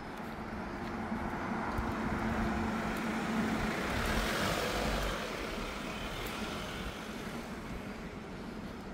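A road vehicle passing. Its engine hum and tyre noise swell to a peak about four to five seconds in, then fade away.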